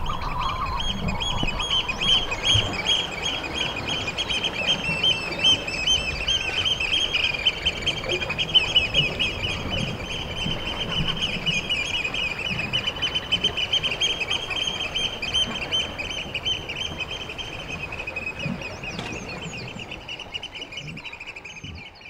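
Manx shearwaters calling at night at their colony: a dense chorus of harsh, cackling calls over a high, fast-pulsing note. It fades out near the end.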